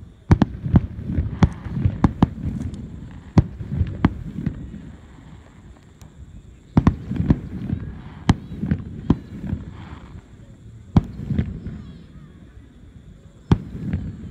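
Aerial firework shells bursting: sharp bangs in quick volleys, each trailed by a low rumbling echo, coming in three or four clusters with short lulls between them.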